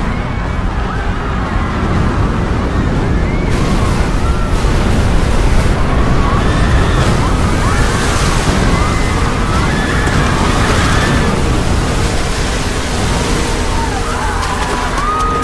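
Film sound of a tsunami surge flooding a street: a loud, continuous low rumble of rushing water that grows fuller about three and a half seconds in, with people screaming over it.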